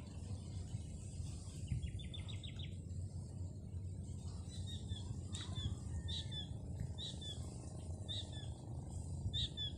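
Small birds chirping: a quick trill of about eight notes about two seconds in, then short repeated chirps about once a second through the rest, over a steady low rumble.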